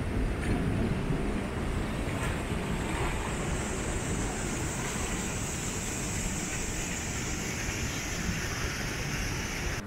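Sea surf washing and breaking over rocks, with wind buffeting the microphone as a steady low rumble. The hiss of foaming water grows stronger about halfway through.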